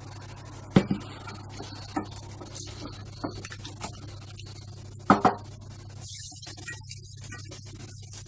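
A metal pan and utensils knocking and clattering as pasta is drained, with several sharp knocks, two of them loud, over a steady low hum. A high hiss starts about six seconds in.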